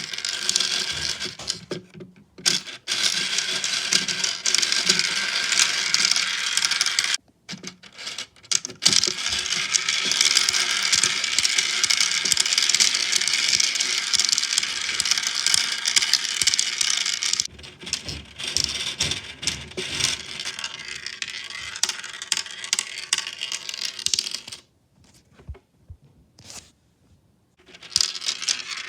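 6 mm balls rolling and clattering through a tiny 3D-printed plastic marble run: a continuous scraping rattle. It drops out briefly about seven seconds in and goes quiet for about three seconds near the end.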